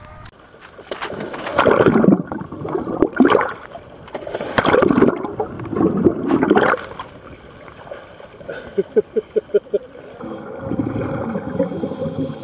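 Scuba diver's exhaled breath bubbling out of the regulator, heard underwater: four loud gurgling bursts of bubbles, each about a second long, in the first seven seconds. A quick run of about eight short bubbling pops follows near nine seconds.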